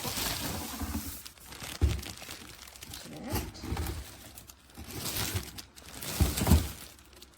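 Packaging crinkling and rustling as a new humidifier is unwrapped and handled, with dull thumps about two seconds in and again near the end.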